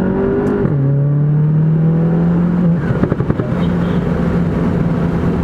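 The turbocharged 2.0-litre four-cylinder of a tuned Mk7 Volkswagen GTI, heard from inside the cabin, pulling hard in second gear with its pitch rising. Under a second in, a quick DSG upshift drops the revs. About three seconds in the throttle closes and a brief burst of rapid fluttering follows, the turbo flutter of the tuned car, and then the engine settles to a steady drone.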